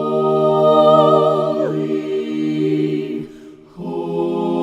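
Voices singing a hymn a cappella, without instruments, slowly drawing out the word "holy": one long held note, a brief breath about three seconds in, then the next held note.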